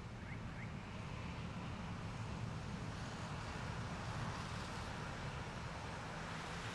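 Steady hiss of a heavy summer downpour during a thunderstorm, growing a little heavier about two seconds in, over a constant low rumble.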